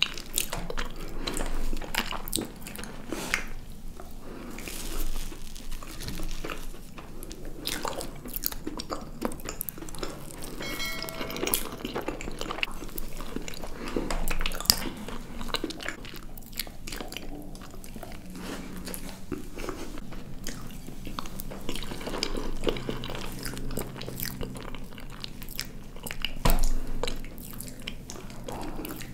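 Close-miked mukbang eating of tiramisu: forks cutting into the soft cake, and many small wet mouth clicks from biting and chewing.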